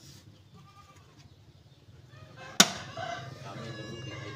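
Spring clip on a Toyota Avanza's air filter housing snapping open with one sharp click about two and a half seconds in. Right after it a farm animal calls, a drawn-out cry that lasts to the end.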